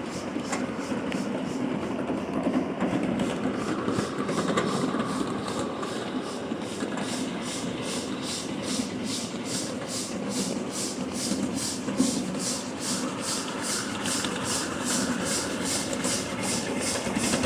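Riding train behind a small coal-fired steam locomotive on the move: a steady rumble from the running gear and track, with an even beat a little over two times a second. One sharper knock comes about twelve seconds in.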